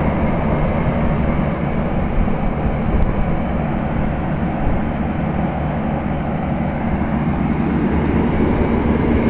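Late-1960s-to-early-1970s General Electric central air-conditioner condensing unit running: steady condenser-fan noise and air buffeting over a low hum. The old unit's shakes and rattles come mostly from the fan, while its reciprocating compressor runs quietly.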